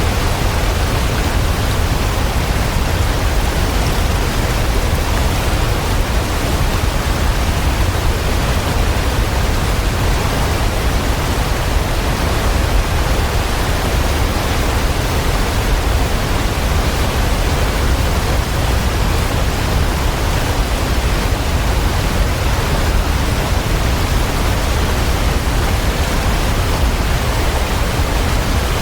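Waterfall: water falling in a steady, unbroken rush that fills the whole range from deep rumble to hiss.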